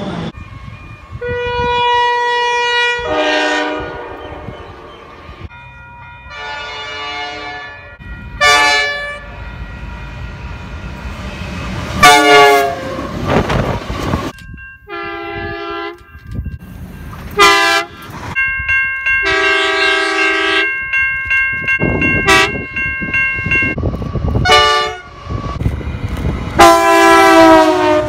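A rapid series of train horn blasts from several different trains, one after another: short toots and longer held chords, each horn with its own set of notes, with the rumble of passing trains between the blasts.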